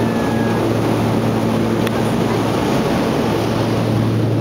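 Twin turboprop engines of a Beech 1900D at takeoff power, heard from inside the passenger cabin: a loud, steady propeller drone with a low hum under a rushing noise.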